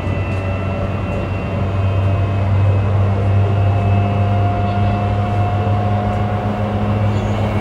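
E235-1000 series electric train running, heard from inside the car: a steady low rumble and hum with a motor whine that climbs slowly in pitch. It gets slightly louder about two seconds in.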